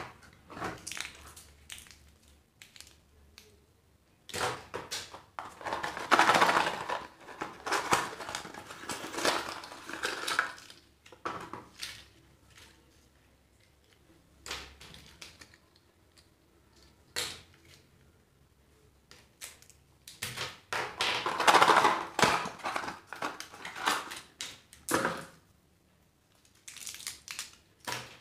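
Small cardboard mystery boxes being torn open, with wrapped candies and small plastic toys handled: bursts of crinkling, tearing and light plastic clicks, separated by short quiet gaps.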